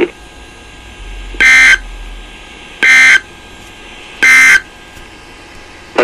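Emergency Alert System end-of-message data tones from a NOAA Weather Radio broadcast: three short, identical warbling beeps about a second and a half apart. They mark the close of the severe thunderstorm warning.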